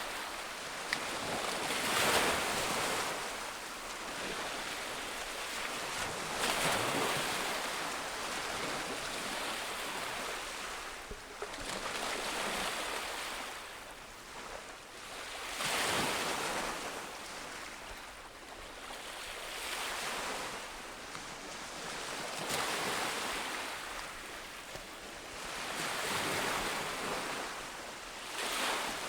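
Ocean waves breaking and washing up a beach, swelling and fading every four to five seconds, with some wind.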